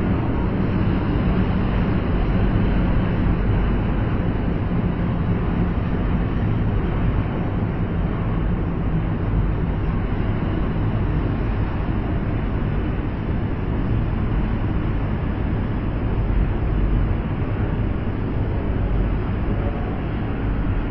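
Rubber-tyred Concarril NM-79 metro train running through an underground station without stopping: a steady, heavy rumble with a low hum, no sudden events.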